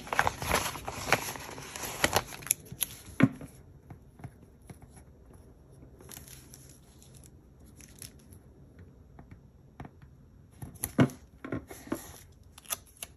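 Paper and wax-paper handling: sheets rustling and crinkling, with sharp papery crackles and clicks. A dense stretch of rustling in the first three seconds or so, only scattered faint crackles in the middle, then another cluster about eleven seconds in.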